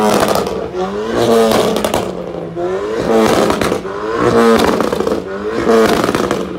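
A car engine revved hard again and again, about five times, each rev climbing in pitch and dropping back.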